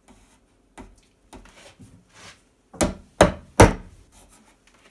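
A hammer driving wooden dowels into drilled holes in a pine board: a few light knocks, then three sharp blows in quick succession a little after halfway.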